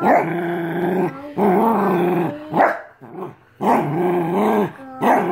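A small shaggy dog growling in a series of long drawn-out growls, each about a second long, with short breaks between them.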